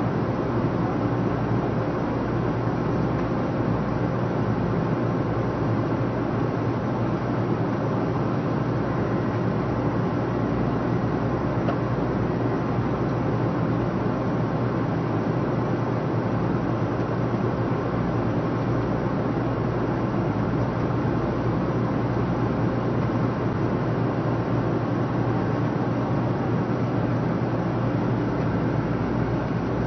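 Steady cabin noise inside a 500 series Shinkansen car: a constant low hum under an even rushing noise.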